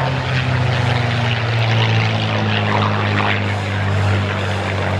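Single-engine propeller airplane flying overhead, its piston engine a steady drone that swells slightly about two seconds in and again near four seconds.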